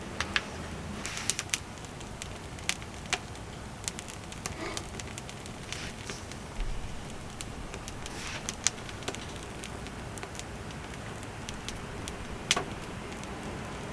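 Wood fire crackling: irregular sharp pops and snaps over a steady low hiss.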